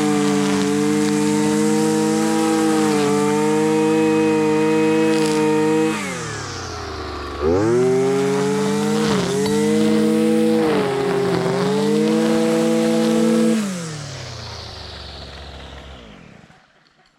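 Husqvarna 326LD string trimmer's two-stroke engine running at high revs, its fuel line freshly replaced. About 6 s in the throttle is let off, it revs back up with a few dips, then near the end it drops to idle and dies out.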